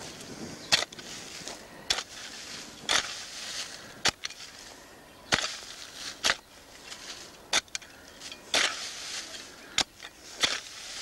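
Sharp knocks and crunches on dry ground and leaf litter, roughly once a second and unevenly spaced, with scraping and crackling between them, as dry soil and litter are worked around grub holes at the foot of a tree.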